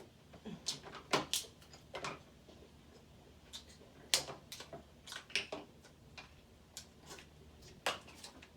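Crab leg shells being cracked and snapped apart by hand: a run of sharp, irregular cracks, about eight of them.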